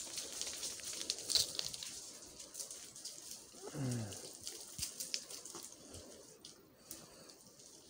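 Footsteps crunching on loose stones and gravel of a steep track, thinning out over the first two seconds. About four seconds in comes a short, low vocal sound that falls in pitch, followed by a few faint scattered clicks of stones.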